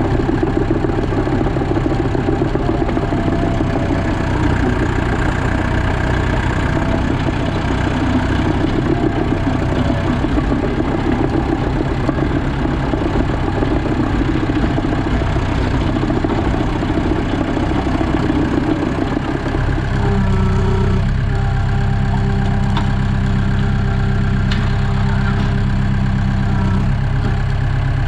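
Diesel engine of a Landini Trekker 85 crawler tractor running loudly with a rough, noisy sound while the tractor drives and turns. About two-thirds of the way through, the roughness drops away and the engine settles into a steady, even note.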